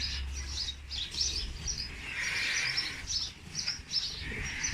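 Small birds chirping: many quick, high-pitched chirps in a continuous chatter, over a faint low rumble.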